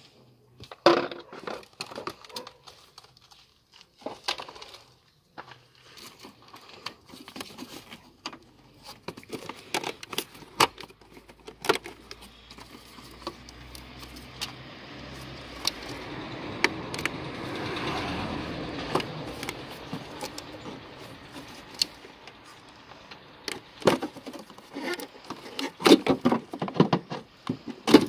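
Plastic clicks, knocks and rattles as the air filter element and the plastic air filter housing of a Vectra C are pulled free and lifted out by hand. A rushing noise swells and fades in the middle.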